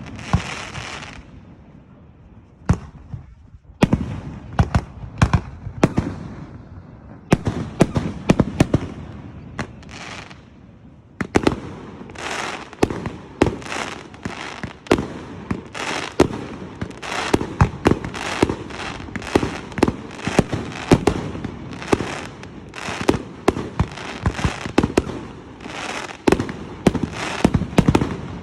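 Fireworks going off in quick succession: sharp bangs and cracks with short echoing tails. They come a few at a time at first, then from about eleven seconds in build to a near-continuous barrage of overlapping bangs.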